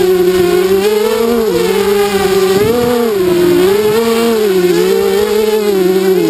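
A ZMR 250 quadcopter's four DYS BE1806 2300KV brushless motors spinning Gemfan 5040 propellers in flight. They make a loud, steady buzzing whine that keeps rising and falling in pitch as the throttle and attitude change.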